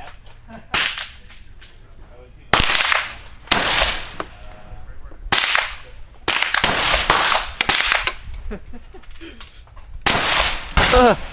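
Rifle shots at a shooting range: about ten sharp reports at uneven intervals, some in quick succession, each with a short echoing tail.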